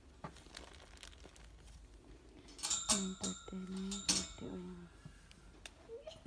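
A few sharp metallic clicks with a short bell-like ringing about three seconds in, heard together with a low humming voice that breaks off a few times.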